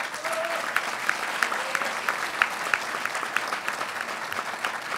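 Audience applauding: many hands clapping steadily, easing off a little toward the end.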